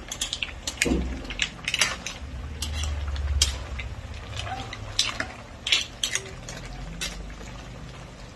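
Metal spatula stirring a pan of mussels in broth, clinking and scraping against the pan and the mussel shells in irregular clicks.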